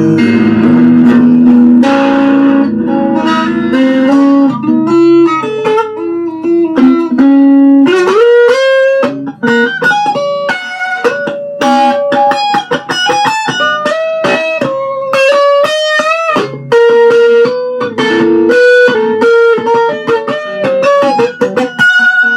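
Guitar solo, instrumental with no singing. It opens over full chords, then turns to a fast single-note lead line with notes that slide and bend in pitch. It stops abruptly near the end.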